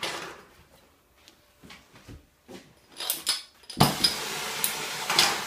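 A few scattered clicks and scrapes, then about four seconds in a DHC 2000 Cobra oxyacetylene torch lights with a sudden whoosh and burns with a steady rushing hiss on acetylene alone, the flame turned up a little too high.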